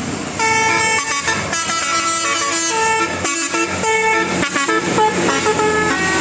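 Bus 'telolet' musical horn playing a quick tune of stepped notes, starting about half a second in.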